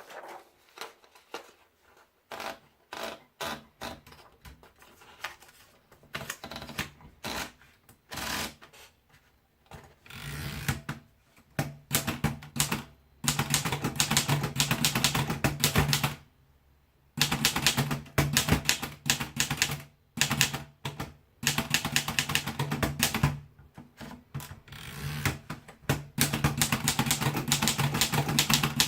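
Erika Model M manual typewriter being typed on: scattered single keystrokes at first, then fast, continuous typing from about halfway in, broken by a couple of short pauses.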